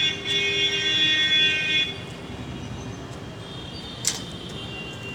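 A horn sounding one steady note that cuts off about two seconds in, followed by a faint steady high tone and a single click about four seconds in.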